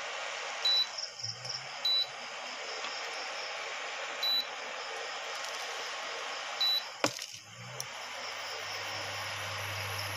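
Steady sizzling hiss of an omelette frying in a little oil on a non-stick pan over an induction cooktop. Short high beeps cut in four times, and a sharp click comes about seven seconds in.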